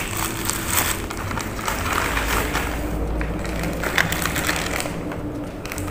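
Plastic packaging rustling and crinkling as a parcel's plastic mailer bag and bubble wrap are handled and opened by hand, with many small crackles.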